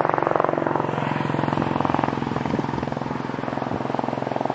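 A steady engine drone with a fast, even pulsing.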